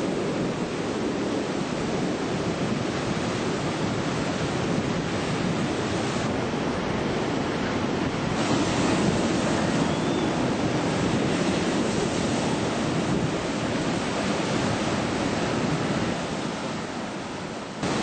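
Ocean surf: waves breaking and washing in a steady rush of noise, with some wind over the microphone.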